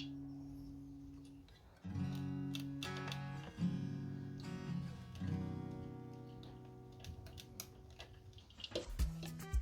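Background guitar music: strummed chords ringing out and fading, struck again every second or two. A few sharp clicks and knocks near the end.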